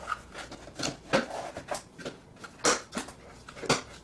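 Irregular knocks and scrapes, about six in all, as a flexible pipe coupling is pushed and worked into the hole cut in a plastic pail lid to test the fit.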